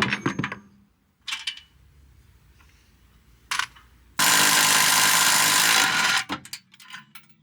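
Metal tool clinks and knocks while exhaust hardware is being unbolted, then a power tool runs in one steady burst of about two seconds near the middle, followed by a few more clinks.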